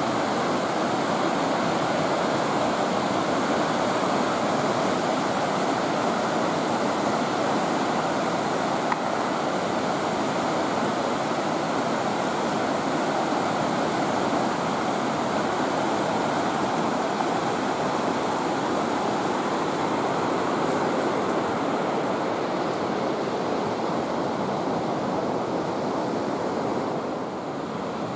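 Fast white water of the Katun River rushing through the Teldykpen rapids, a steady, unbroken rush that drops a little in level near the end.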